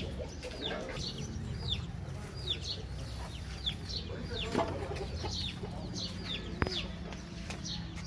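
Chickens calling: a steady run of short, high, falling peeps, two or three a second. A sharp click sounds about six and a half seconds in.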